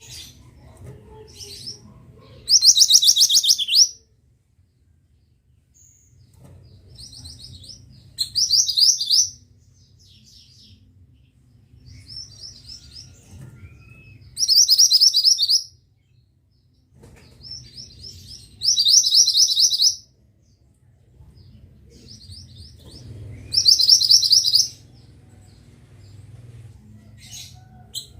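A mantenan songbird singing a repeated song: five loud, rapid, buzzy trills about a second long, roughly every five seconds, with faint chirps between, over a low steady hum.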